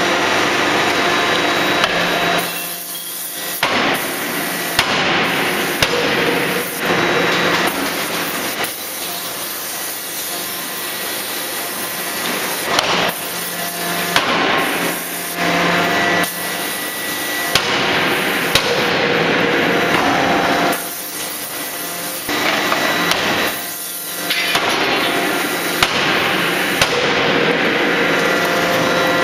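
Hydraulic closed-die forging hammer at work: sharp blows at irregular intervals over a steady, loud machine din.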